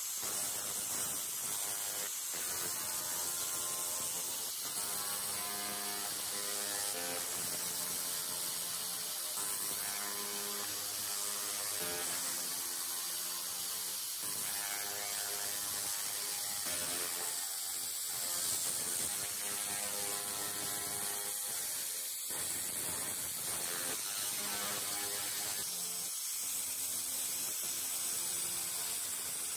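Handheld pulsed fiber laser cleaner stripping rust from metal: a steady, rapid crackle over a high hiss, with tones that shift in pitch every second or two.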